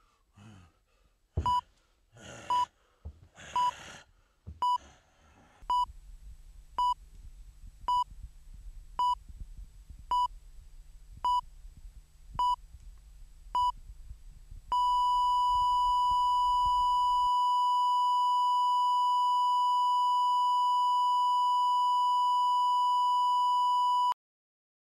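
Hospital heart monitor beeping steadily about once a second, with a few bursts of rushing noise alongside the first beeps. About fifteen seconds in, the beeping turns into one unbroken flatline tone, the sign that the patient's heart has stopped. The tone then cuts off suddenly.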